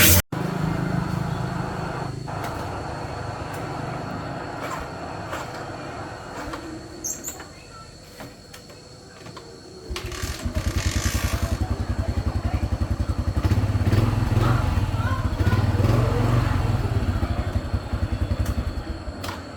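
Motorcycle engine starts about ten seconds in and runs with a fast, even beat, louder for a few seconds in the middle before easing off.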